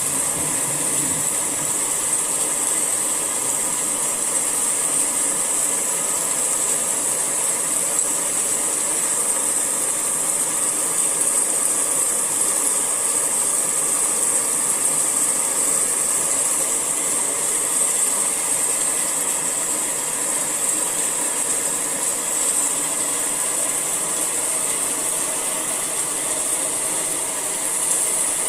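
Steady rain falling, an even high hiss that holds at one level throughout.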